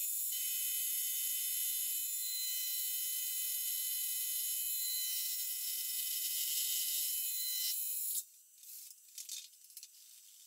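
Milling machine spindle running steadily while an end mill cuts a helical groove into a rifling-button blank, with a steady whine over the hiss of the cut. It stops about eight seconds in, leaving faint clicks and rattles.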